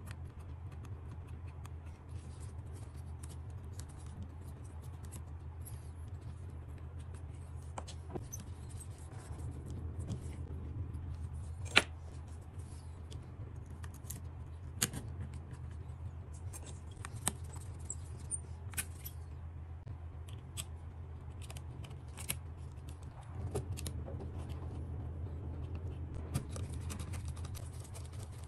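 Scattered sharp clicks and taps of small plastic and metal parts of an opened DJI Mini 3 Pro drone being pried, pressed into place and screwed, over a steady low hum. One click near the middle is much the loudest.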